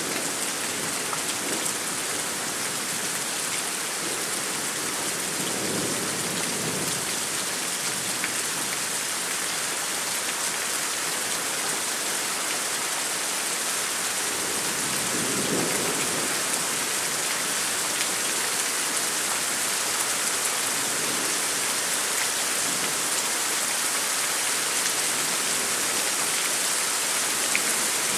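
Steady rain falling in a thunderstorm, an even hiss throughout. Two low rumbles of distant thunder swell up under it, about six seconds in and again about fifteen seconds in.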